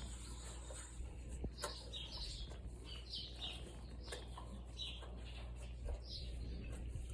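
Small birds chirping in short, falling high notes, several times throughout, over a steady low hum.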